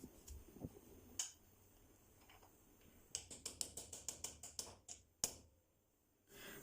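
A quick, even run of light metallic taps, about five a second, with a few single clicks before and after: the lower steering-head bearing race being tapped into the bottom of the steering column.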